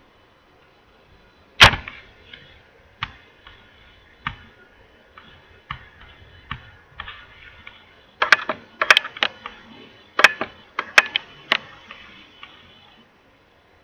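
A dozen or so sharp clicks and taps from a pointing device selecting items in whiteboard software. There is one loud click about two seconds in, scattered lighter ones, and a quick run of clicks from about eight to twelve seconds in.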